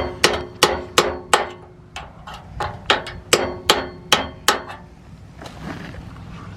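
Hammer blows on the rusted steel exhaust pipework of a coach bus. There are about a dozen quick metallic strikes, roughly three a second, each ringing briefly, and they stop after about four and a half seconds.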